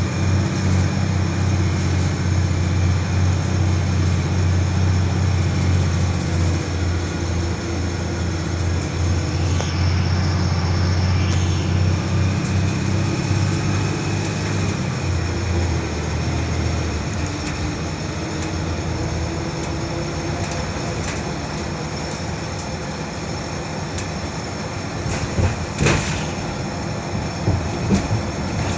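Interior of a Volvo B12BLEA articulated bus under way. Its engine drones steadily under power, then the drone falls away a little over halfway through, leaving road and tyre noise. A few rattles and knocks from the body come near the end.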